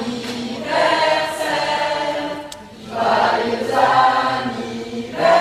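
A choir singing: many voices together in held notes, in phrases of a second or two with short breaks between them.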